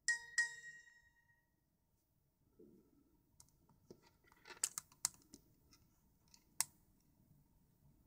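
Two quick bright chime tones from a Nokia N9 phone's incoming-text alert, ringing out for about a second. A few seconds later come sharp clicks and knocks as the Pebble smartwatch is handled and picked up off the desk.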